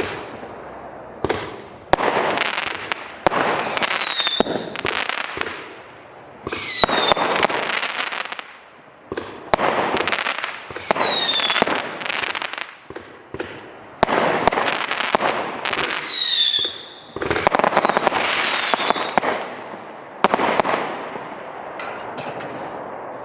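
A 504-shot, 0.6-inch 'Black Mamba' fireworks cake firing in rapid volleys of shots, the volleys coming in waves a few seconds apart. Several volleys carry short whistles that fall in pitch, and the firing thins out near the end.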